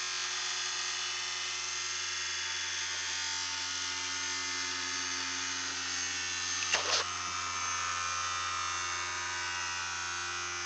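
Vibrating-toothbrush motor with an offset weight buzzing steadily, mounted in an aluminium foil tray hull and run from a 9-volt battery. A brief knock about seven seconds in.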